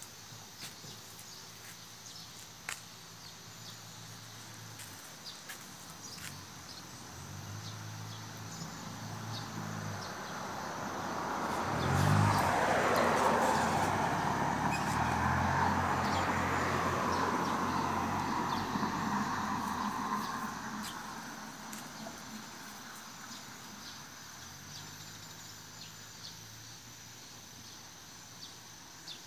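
A vehicle passing by: its sound swells over a couple of seconds to a peak about twelve seconds in, then slowly fades over the next ten seconds. Scattered small clicks sound throughout.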